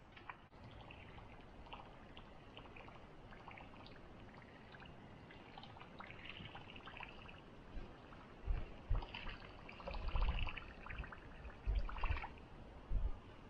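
Small waves lapping and splashing against shoreline rocks in a steady trickle. From about two-thirds of the way in, gusts of wind buffet the microphone with low rumbling pulses.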